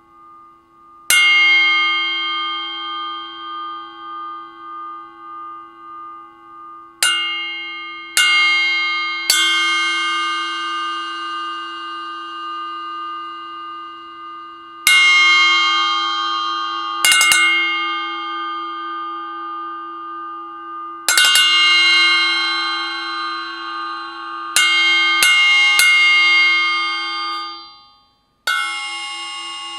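Paiste 2002 10-inch Mega Bell, a bell cymbal, struck about a dozen times at an uneven pace, each hit ringing on with a long, bright metallic sustain of several steady tones. Near the end the ringing is cut off suddenly, then one more strike.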